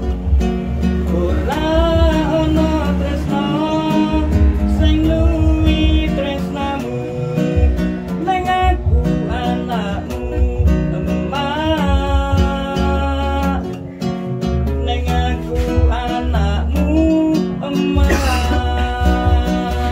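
A man singing a song while playing an acoustic guitar.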